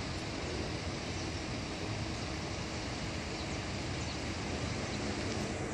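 Steady outdoor background rumble and hiss with a low hum underneath, unchanging throughout.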